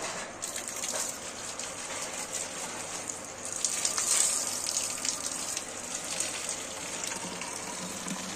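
A stream of running water gushing into a plastic bottle as it is filled, with splashing.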